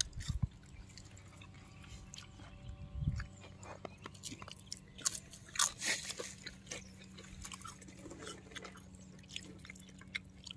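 Someone chewing crispy deep-fried potato chips: scattered, irregular crunches, a few louder bites about three, five and six seconds in.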